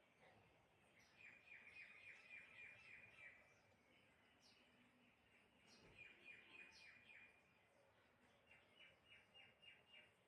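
Faint bird chirping: three runs of quick, short repeated chirps, about four to five a second, with a few single sharp high notes between them.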